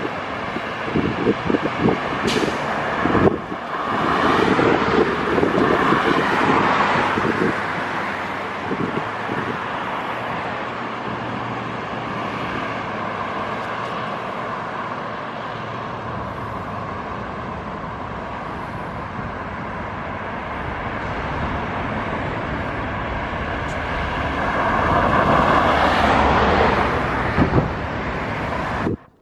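Road traffic passing: cars driving by on the road, the tyre and engine noise swelling twice, about five seconds in and again near the end, with wind buffeting the microphone in the first few seconds.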